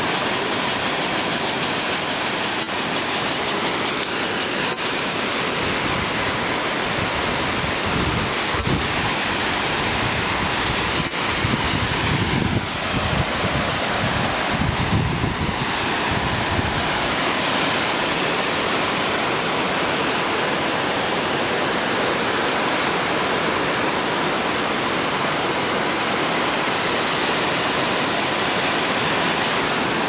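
Steady rush of the Kayoufeng Waterfall's falling water. For several seconds in the middle, low buffeting on the microphone from wind or handling breaks in.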